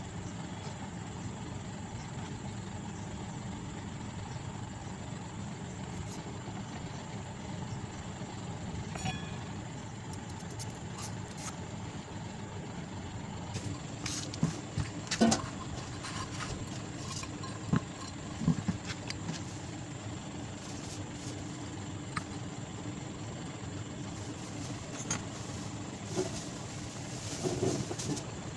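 A steady low hum, with scattered sharp clicks and knocks from about halfway on as the metal parts of a stand fan motor are handled: the rotor shaft, the aluminium end housing and its bearing parts.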